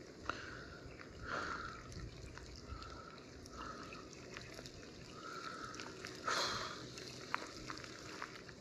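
Light rain beginning over a swollen, fast-flowing river: a soft steady wash with scattered ticks of drops and several brief noisy swells, the strongest near the start and about two-thirds of the way in.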